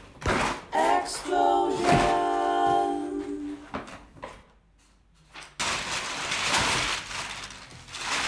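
A short sung musical phrase with a few knocks of cardboard being handled, then loud crinkling of brown kraft packing paper being pulled out of a cardboard box.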